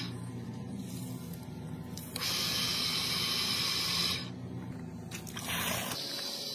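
Repaired automatic electric water pump running with a steady hum, while water sprays from a hose nozzle in two bursts of hiss: about two seconds from a couple of seconds in, and a short one near the end.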